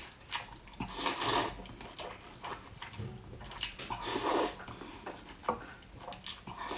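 A person slurping sesame-sauced glass noodles: two long wet slurps, about a second in and about four seconds in, with shorter mouth sounds between.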